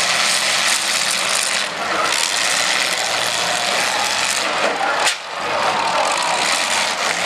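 Demolition derby cars' engines revving loudly as the cars shove and ram into each other, with a single sharp knock about five seconds in.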